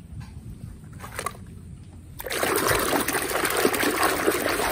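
Muddy water splashing and sloshing as a hand churns and scrubs a plastic toy in a basin, starting suddenly about two seconds in. Before that, only a few faint knocks.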